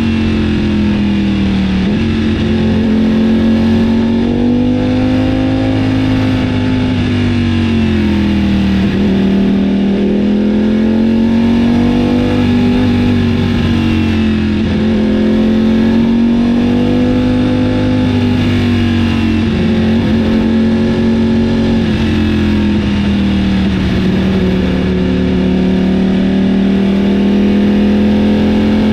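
Ducati Panigale V4's Desmosedici Stradale V4 engine running loud and steady, its pitch rising and falling gently every few seconds.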